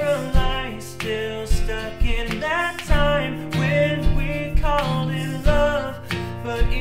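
Pop song played on acoustic guitar and makeshift percussion tapped on household objects such as Tupperware, with layered sung vocal harmonies and a steady beat of about two hits a second.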